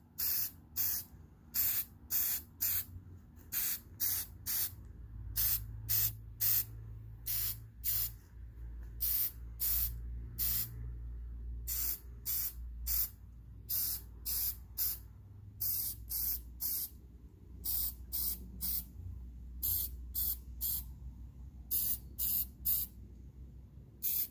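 ColorPlace aerosol spray-paint can sprayed in dozens of short hissing bursts, singly or two or three close together with brief gaps between, as light coats of paint go on.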